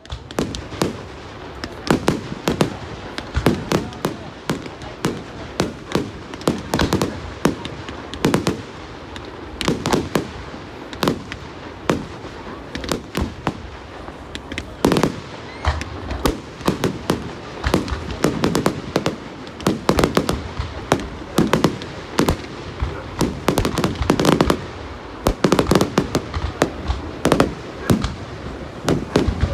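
Fireworks going off: a rapid, continuous run of sharp bangs, often several a second, with crackle between them.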